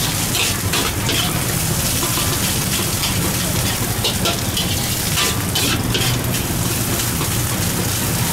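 Fried rice sizzling in a hot wok while it is stirred and tossed, with repeated scrapes and clinks of a metal ladle and spatula against the wok.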